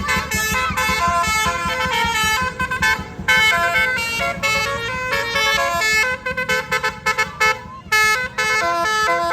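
Telolet horn, a vehicle's set of multi-tone horns, playing a quick tune of short stepped notes, several pitches at once, with an engine running underneath.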